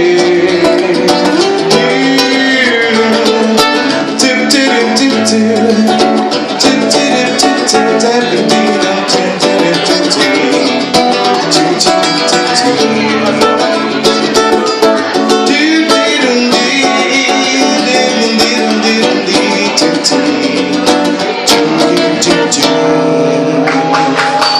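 Live acoustic guitar strumming an instrumental ending to a Brazilian pop (MPB) song, after a male voice sings the last word right at the start.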